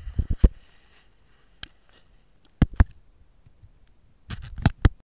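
A handful of sharp clicks and knocks over quiet room tone: a few right at the start, two about two and a half seconds in, and a quick run of about four near the end.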